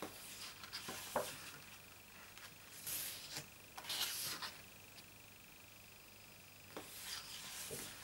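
Pages of a large photobook being turned by hand: the thick glossy paper swishing and rustling in several short bursts, with a few light ticks as the pages flip and land.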